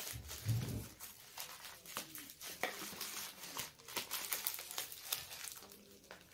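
Thin black plastic bag crinkling and rustling in irregular crackles as it is handled and pulled open, with a soft low thud about half a second in.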